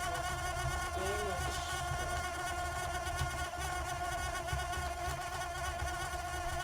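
3D printer running, its stepper motors giving a steady, even-pitched whine over a pulsing low rumble.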